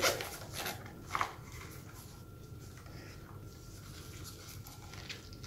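Hands handling and opening a small zippered hard case for a dive computer: a few short scratchy rubs of the case fabric in the first second or so, then faint rustling as the case is opened.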